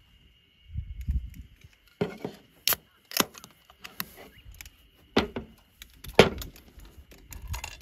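A handful of sharp knocks and clacks of hard objects being handled, with smaller clicks between them and a faint steady high tone behind.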